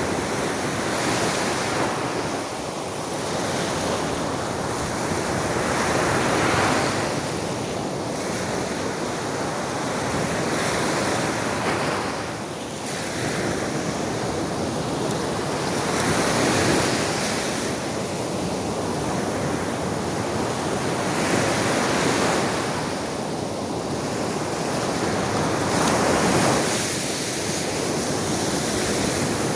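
Sea waves breaking and washing up on the shore, a continuous rushing that swells with each wave every four to six seconds. Wind gusts on the microphone.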